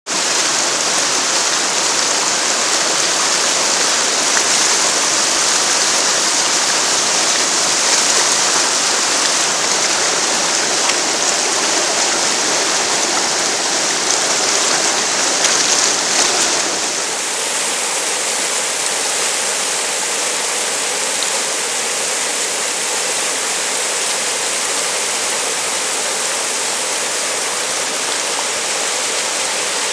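Whitewater rapids rushing steadily over rock ledges in a creek. The level drops a little past halfway.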